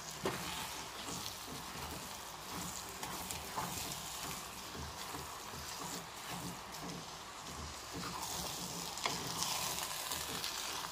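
Wooden spatula stirring and turning cooked tomato rice in a stainless steel pot over low heat, the rice sizzling against the hot pot bottom, with occasional soft scrapes and taps of the spatula on the metal.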